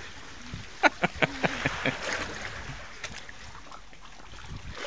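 Sea water splashing around a swimmer in the shallows: a quick run of short splashes about a second in, then a steady wash of water.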